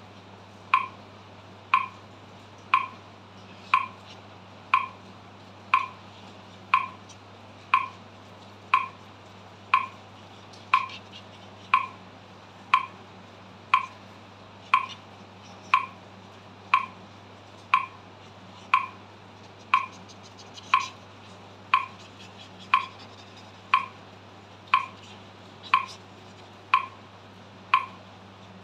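Metronome clicking steadily at 60 beats per minute, one short, even click each second.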